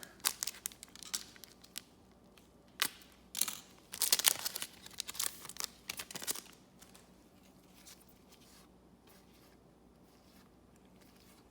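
Trading card pack being handled: the wrapper crinkles and tears and the cards rustle and snap, in quick bursts over the first six seconds or so, then it goes quiet.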